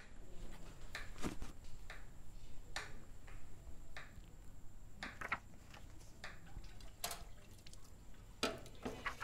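Quiet handling of a photo album as it is picked up and opened: scattered soft taps and paper sounds over a faint background.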